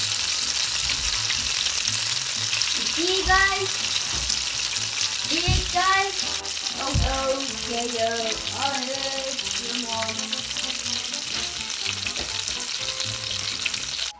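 Breaded mozzarella patties frying in shallow olive oil in a non-stick pan, a steady hissing sizzle. A few short pitched sounds rise over it between about three and ten seconds in.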